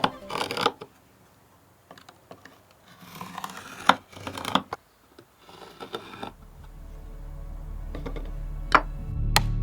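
Hand tools working wood: short scraping strokes with a few sharp taps and knocks. Music swells in during the second half.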